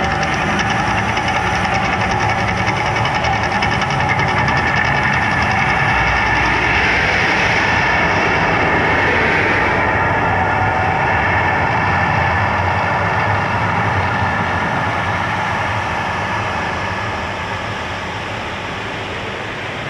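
The Mirage volcano's eruption show: a loud, continuous rumbling roar of the fire effects and show sound, easing off near the end.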